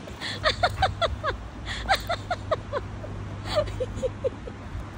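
A dog giving rapid runs of short, high, falling yips and whines, begging excitedly for a treat held above it. A steady low engine hum runs underneath.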